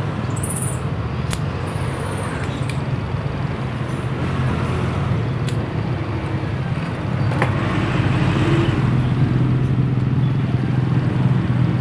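A motor vehicle engine running steadily, a low drone that gets a little louder about two-thirds of the way through, with a few sharp clicks over it.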